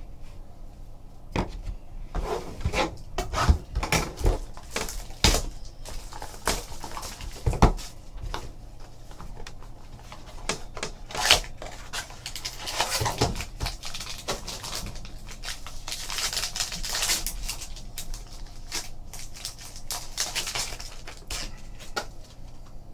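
Trading cards and their packaging being handled: a string of light clicks and taps, then a stretch of rustling and crinkling as the next pack is opened.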